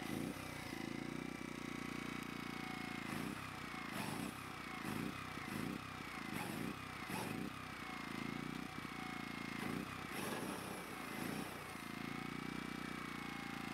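Corded electric drill boring a hole through a steel plate with a twist bit. The motor runs steadily with a whine that wavers in pitch, and through the middle it catches and falters over and over as the bit bites into the steel.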